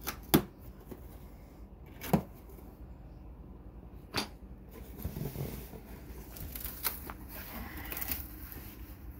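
Cardboard shipping box being handled and opened: three sharp knocks about two seconds apart as the box is moved and set against the desk, then cardboard flaps scraping and rustling as they are pulled open.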